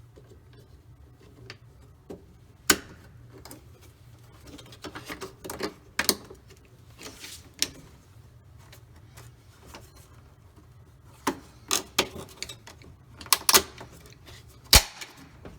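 A new replacement part on a Kenmore top-load washer's drive being pushed and snapped into place, with scattered sharp clicks and knocks and a few louder snaps.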